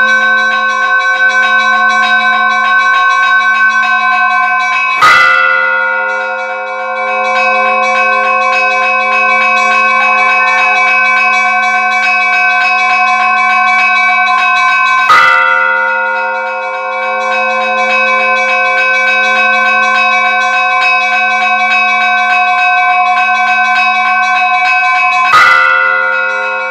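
Church bells ringing: a bell is struck three times, about ten seconds apart, and each strike rings on into a long, steady hum of overlapping bell tones.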